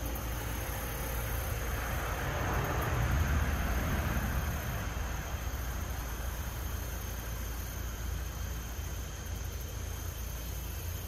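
Steady outdoor background noise, a low rumble with a broad hiss, swelling for a couple of seconds about two seconds in.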